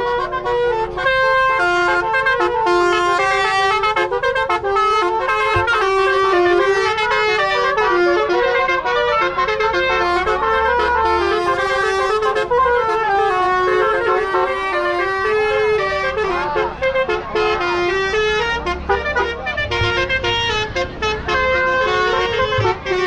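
Tour bus's telolet horn playing a long melody: several horn tones sound together, stepping from note to note in short notes, with the bus engine running underneath.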